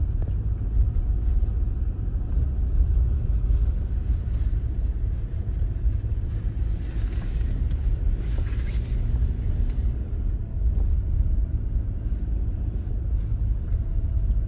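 Car driving slowly over a snow-packed road, heard from inside the cabin: a steady low rumble of engine and tyres.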